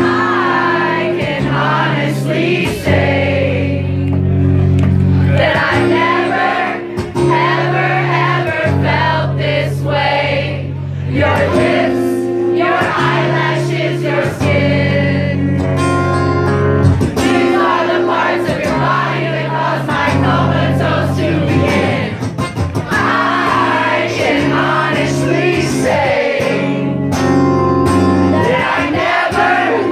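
Live performance: a man singing into a microphone while strumming an acoustic guitar.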